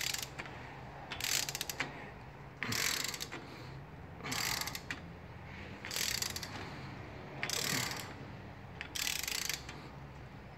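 Click-type torque wrench ratcheting a 13 mm bolt in repeated back-and-forth strokes: about seven short runs of rapid pawl clicks, roughly one every second and a half. The bolt is being brought toward 17 foot-pounds, and the wrench's release click has not yet come.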